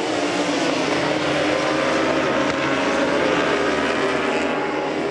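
A pack of endurance racing superbikes at high revs, many engines overlapping and shifting in pitch as they accelerate through the corners, louder in the middle as they pass.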